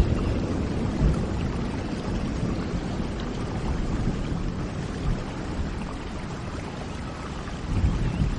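Steady rain with a low rumble of thunder dying away over the first second or so and swelling briefly again near the end; a few faint bird chirps.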